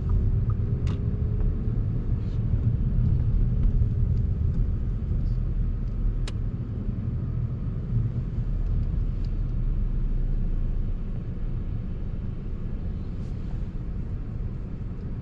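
Car engine and tyre rumble heard from inside the cabin while driving, with a faint engine tone rising and falling over the first few seconds and a couple of sharp clicks.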